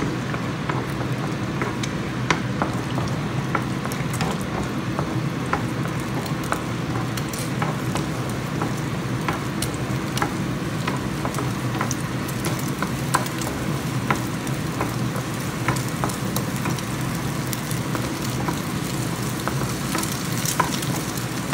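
Beaten egg sizzling in a nonstick frying pan as it is stirred and scrambled with a wooden spatula, with frequent light clicks and scrapes of the spatula on the pan.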